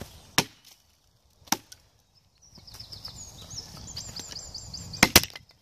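Wood being chopped with a blade on a log: a sharp chop about half a second in, another about a second and a half in, and a quick double chop near the end. A run of quick high chirps sounds in between.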